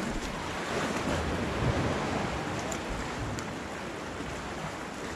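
Calm sea water lapping and washing against shoreline rocks, a steady wash of noise.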